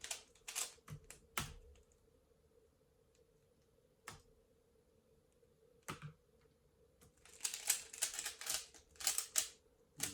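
Cyclone Boys Feiwu plastic speedcube being turned by hand: quick clacking turns in the first second and a half, a quiet stretch broken by two single clicks, then rapid continuous turning over the last few seconds.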